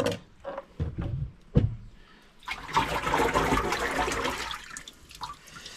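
A few short knocks, then water splashing and pouring for about two and a half seconds, starting about two and a half seconds in and fading out near the end.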